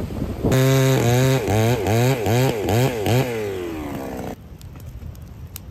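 Chainsaw started up and revved in about five quick bursts, its pitch rising and falling with the throttle, then winding down and stopping about four seconds in.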